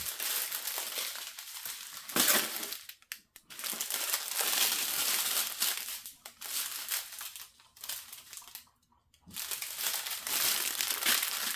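Thin plastic packaging crinkling and rustling as small bags of diamond painting drills are handled. It comes in three long stretches with short pauses between them.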